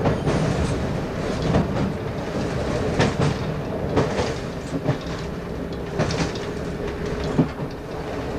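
Class 117 diesel multiple unit running along jointed track, heard from the front cab: a steady diesel drone with the wheels clacking over rail joints every second or so, often in quick pairs.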